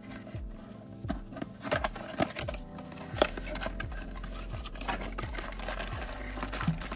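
A small cardboard blind box handled and opened by hand: scattered paper taps, scrapes and a few sharper clicks. Soft background music with a regular low beat runs underneath.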